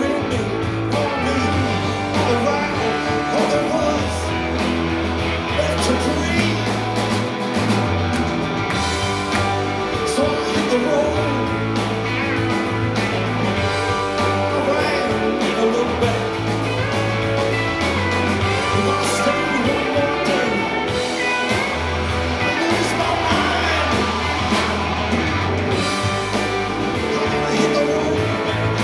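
Live rock band playing: electric guitars over a sustained bass line and drums, with a sung vocal.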